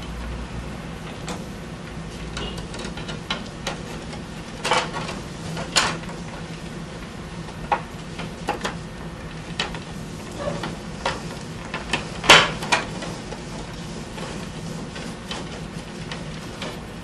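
Irregular light clicks and knocks as cord is pulled tight and tied around the wooden ribs of a lamp mold, the wood pieces tapping against each other, about a dozen sharp ones with a louder knock near the middle. A steady low hum runs underneath.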